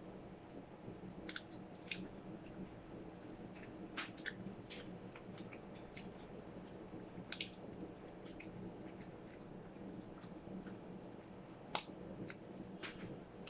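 Close-miked chewing and eating mouth sounds: scattered wet clicks and smacks, with the sharpest one about twelve seconds in. A faint steady hum runs underneath.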